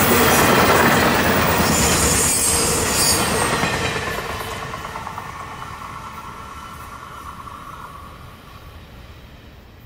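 The tail end of an intermodal freight train, flatcars carrying highway trailers, passing close at speed: wheels rumbling and clattering over the rail joints, with a brief high-pitched squeal about two seconds in. The sound then fades steadily as the train moves away.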